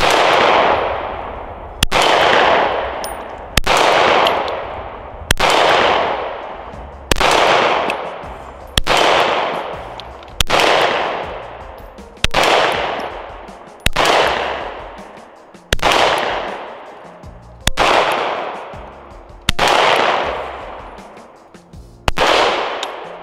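FN 509 MRD pistol fired at a slow, even pace: thirteen sharp shots, about one every one and three-quarter seconds, each followed by a long fading echo.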